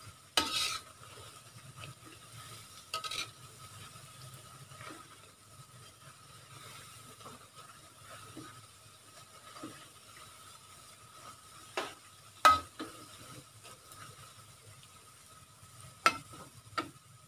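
Thin slices of beef meatball deep-frying in a wok with a faint sizzle, stirred with a metal spoon that knocks and scrapes against the wok about six times, loudest about twelve seconds in. The chips are nearly done, turning crisp (kriuk-kriuk) as they are stirred.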